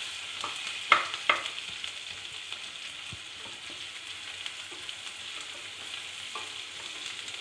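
Chopped onions sizzling in hot oil in a stainless steel pan as they are stirred with a spoon, sautéing until translucent. The spoon knocks sharply against the pan twice about a second in, with a few lighter taps later.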